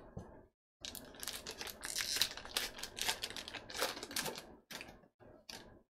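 Wrapper of a 2019 Topps Allen & Ginter baseball card pack torn open and crinkled by hand: a dense run of crackles and rips, ending in a few short rustles.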